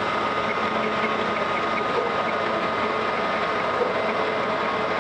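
A motor running steadily, with a faint constant whine over it.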